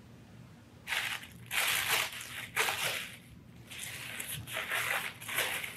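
Tissue paper rustling and crumpling as hands lift it out of a cardboard box, in a run of separate rustles starting about a second in.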